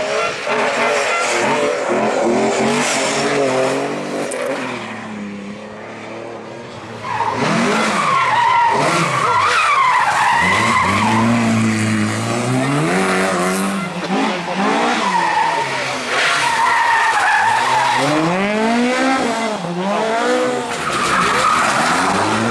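Rally cars driven hard on a special stage, engines revving up and dropping back through gear changes, with tyre noise. The sound eases off about five seconds in, then comes back loud as further cars pass, one from about seven seconds and more from about sixteen and twenty-one seconds.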